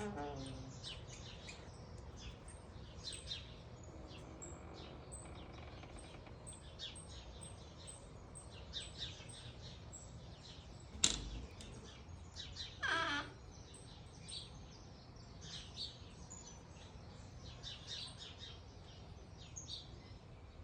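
Birds chirping and calling, many short high chirps one after another. There is a sharp click about eleven seconds in and a louder call falling in pitch about two seconds later.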